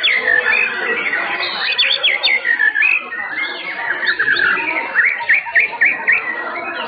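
White-rumped shamas (murai batu) singing in competition: loud, overlapping whistled phrases with quick sweeping notes, and a run of rapid down-slurred notes about five seconds in.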